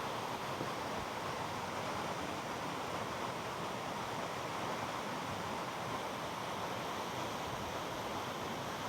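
Steady rush of flowing mountain water, an even hiss without separate splashes or other events.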